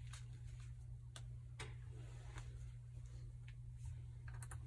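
A quiet room with a steady low hum and a few faint, scattered ticks.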